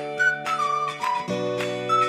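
Upbeat background music: a short, high flute-like melody repeating over steady held chords and a light strummed beat.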